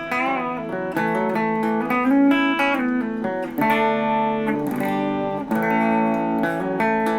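Les Paul electric guitar played through a clean amp: a clean tone for single-note blues-rock licks, with several string bends.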